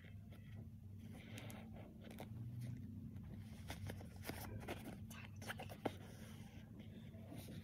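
Rustling and crinkling of a padded winter jacket's shell fabric as it is handled during hand sewing, with many small scattered clicks and scrapes as the needle and thread are drawn through. A faint low hum runs underneath.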